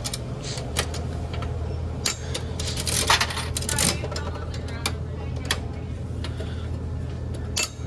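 Coins going into a toy vending machine: a run of sharp metallic clicks, with a rattling cluster about three to four seconds in.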